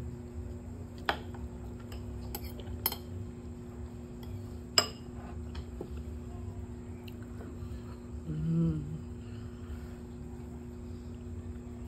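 Metal spoon clinking against a ceramic bowl during eating: three sharp clinks, about a second in, about three seconds in, and a louder one about five seconds in. A steady machine hum runs underneath, and a short low hum is heard about two-thirds of the way through.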